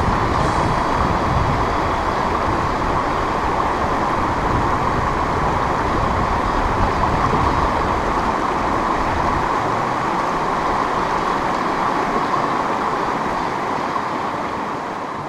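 Rushing water of a shallow, stony river riffle: a steady, loud hiss, fading slightly near the end.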